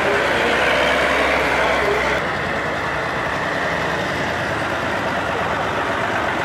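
Engine of a homemade off-road tractor running steadily under load as it drives through mud, with a low hum that drops out about two seconds in.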